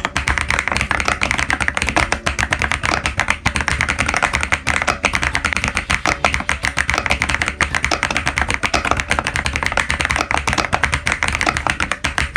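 Fast, continuous typing on a Womier VK66 mechanical keyboard: a dense stream of keystroke clacks, many per second.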